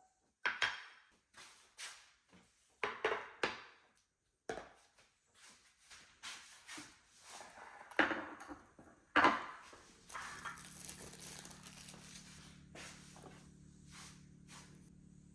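Kitchen clatter: irregular knocks and clinks of things being handled and set down, the loudest two about eight and nine seconds in. A steady low hum sets in about ten seconds in.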